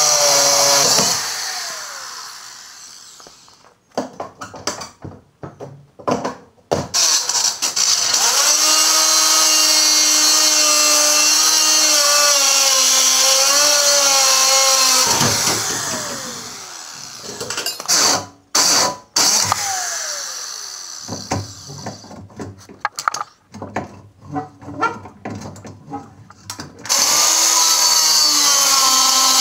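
DeWalt angle grinder cutting through rusted steel trailer U-bolts, throwing sparks. It runs in several spells with a steady whine that wavers in pitch as the disc bites. Between spells it winds down with a falling whine: about a second in, around the middle, and again a few seconds later.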